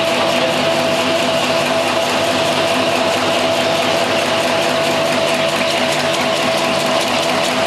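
MT-206 quail egg shelling machine running: a steady hum with a constant tone and a fast, even rattle as the eggs are tumbled and shelled.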